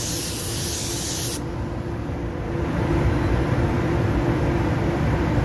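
Automotive paint spray gun spraying thinner to melt in the edge of a spot repair, a steady hiss that cuts off suddenly about a second and a half in. A steady low hum carries on underneath.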